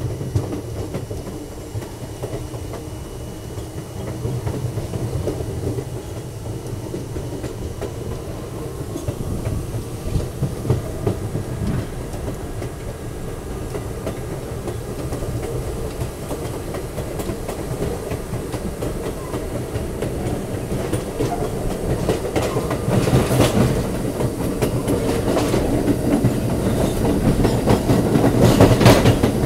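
R32 subway train running at speed, its wheels clattering over rail joints over a steady rumble. It grows louder toward the end, with sharp clacks.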